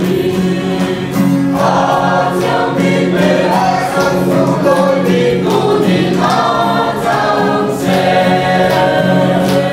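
Choir singing a Christian hymn, with long held notes over steady sustained chords.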